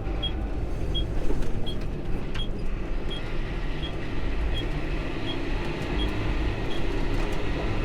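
Tractor engine running steadily, heard from inside the cab. A light, high tick repeats about every 0.7 seconds and stops near the end.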